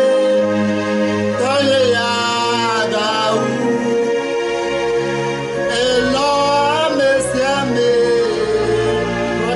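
A man singing a hymn solo, holding long notes with vibrato, over a steady instrumental backing.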